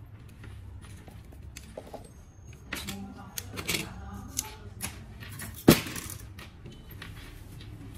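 Diagonal side cutters snipping and nicking the plastic jacket of a coaxial cable: a run of small sharp clicks and snips with rustling handling, and one loud snap about three quarters of the way through, as the jacket is cut and pulled back from the braided shield.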